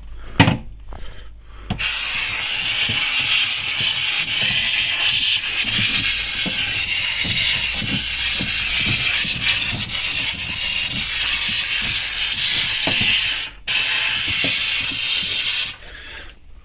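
Handheld steam cleaner jetting steam with a loud steady hiss onto ice to defrost a freezer. The hiss starts about two seconds in, cuts out for a moment near the end and stops just before the end.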